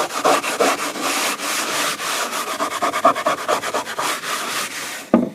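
Hand scrubbing of an oak floor with an abrasive pad, in rapid back-and-forth strokes, scouring off paint drips. The scrubbing stops near the end, followed by a brief thump.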